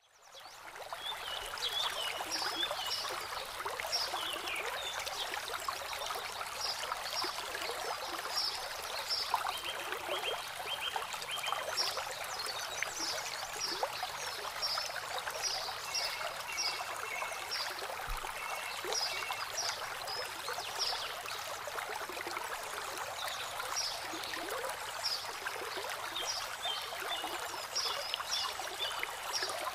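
Water trickling steadily over the pebble bed of a shallow landscape stream between boulders. Runs of short, high chirps come and go over it.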